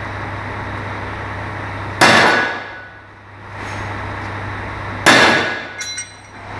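Two sledgehammer blows on a driveshaft yoke, about three seconds apart, each a loud metallic clang with a ringing tail, hammering at a universal-joint cross that will not come out.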